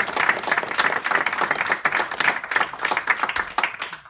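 Audience applauding, many hands clapping at once, the clapping thinning out and dying away near the end.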